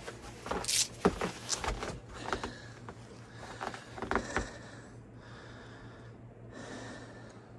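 A man breathing hard and sniffing, winded from shovelling heavy snow: a few sharp sniffs and gasps, then long, hissy breaths in and out.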